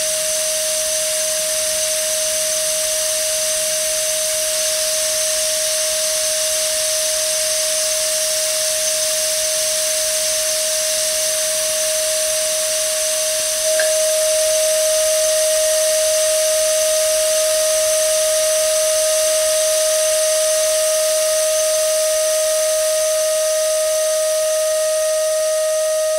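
Sound-design drone: one sustained steady tone over a constant hiss. About halfway through it steps up in loudness with a faint click, and two fainter, higher tones join and hold.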